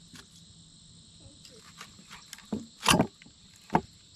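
Steady high-pitched chirring of crickets or other insects, with a few sharp crunches and knocks about two and a half to four seconds in, the loudest just before three seconds in: the stiff blade of a Leatherman multi-tool forced through a catfish's rib bones and onto a plastic cutting board.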